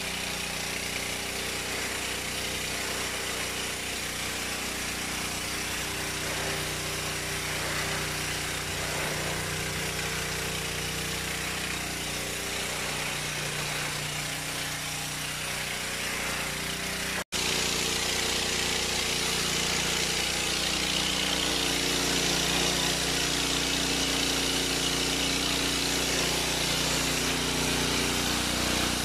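Ferrex petrol high-pressure washer running steadily: the engine's even hum under the hiss of the water jet. About two-thirds of the way through the sound breaks off for an instant, and after that the spray hiss is louder as the jet hits paving.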